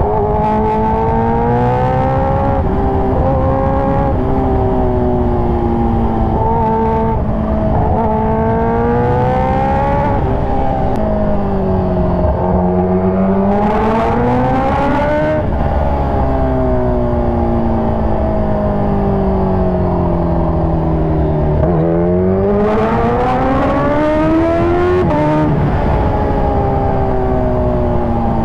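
Kawasaki Ninja H2R's supercharged inline-four running at road speed. Its pitch climbs and falls again and again as the throttle is opened and eased, with a steep climb about two-thirds of the way through.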